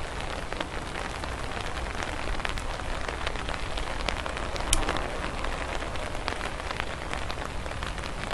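Steady rain falling, an even hiss scattered with the ticks of individual drops landing close by.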